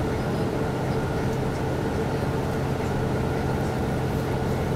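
KiHa 182 diesel railcar's DML30HSI engine running steadily, heard inside the passenger car over the train's running noise: a constant drone with a few held engine tones.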